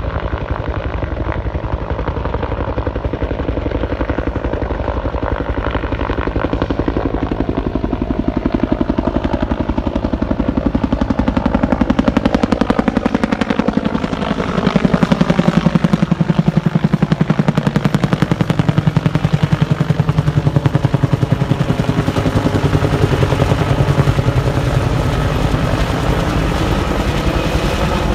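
AH-1W SuperCobra attack helicopter flying past, its two-bladed main rotor beating in a fast, even chop over the whine of its engines. It gets louder about halfway through as it comes close overhead, and the pitch of the whine shifts as it goes by.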